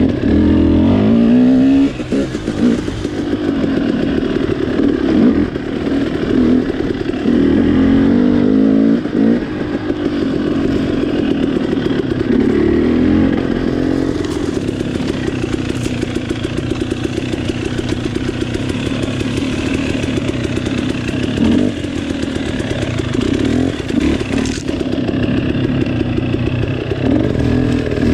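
Off-road motorcycle engine running under way, revving up and down so that its pitch rises and falls every few seconds.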